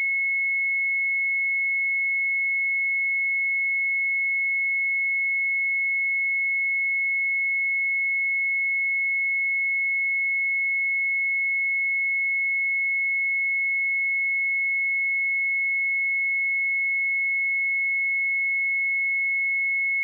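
A pure 2185 Hz sine-wave test tone, a single steady high-pitched beep held at constant loudness.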